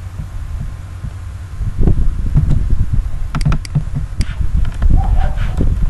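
Low, irregular thumping rumble, with a few sharp computer-mouse clicks about three and four seconds in.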